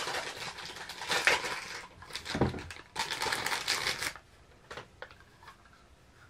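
Thin clear plastic packaging bag crinkling and rustling as a pair of doll shoes is pulled out of it; the crinkling stops about four seconds in.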